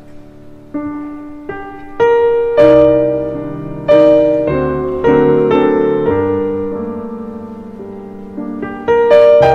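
Slow solo piano music: single notes and chords struck one after another, each ringing and fading, soft at first and louder from about two seconds in.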